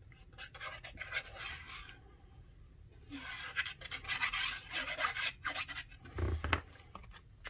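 Plastic tip of a glitter-glue bottle scratching and rubbing across paper as glue is drawn on in squiggles, in two stretches, the second louder. A dull thump comes about six seconds in.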